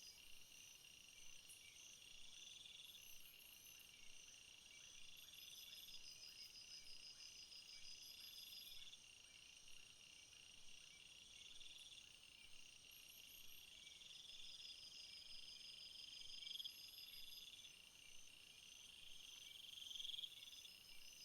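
Faint chorus of crickets and other insects: several high, pulsing trills overlap, with phrases that swell and recur every second or two.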